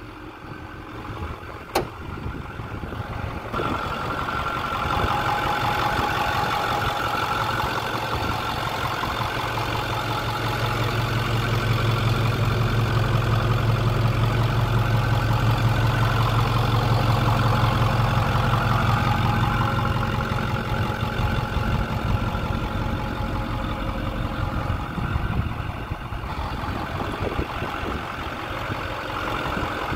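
Ford 6.4-litre Power Stroke twin-turbo V8 diesel idling steadily with the hood open, louder in the middle stretch. A single short click about two seconds in.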